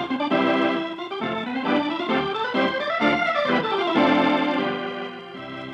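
Organ music playing a melodic theme over held chords, as the bridge that opens an act of a radio drama, easing quieter near the end.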